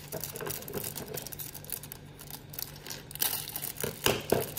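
Plastic LEGO parts bag crinkling as it is handled and opened, with small plastic clicks and a few louder rustles near the end.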